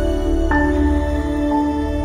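Background music of held chords over a steady low bass, with a change of chord about half a second in.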